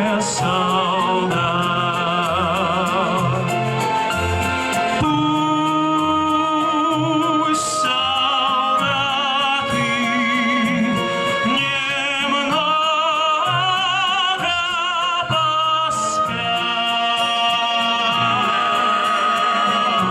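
Music playing loud and steady: the introduction to a song, a wordless melody sung or played with wide vibrato over a full backing arrangement.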